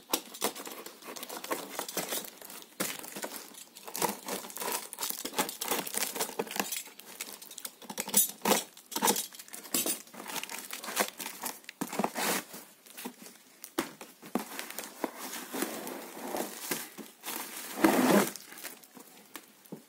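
Plastic stretch wrap and packing tape on a cardboard box crinkling and tearing as it is cut and pulled open with a utility knife, in irregular crackles. Near the end, the loudest rustle comes as a black plastic bag is pulled up out of the box.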